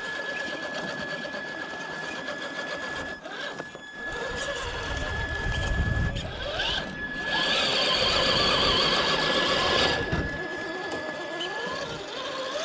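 Traxxas TRX-4 Sport RC crawler's electric motor and gearbox whining as it climbs rock, with a steady high whine and the pitch rising as the throttle is applied. It gets louder and rougher for about three seconds past the middle while it works up the boulder.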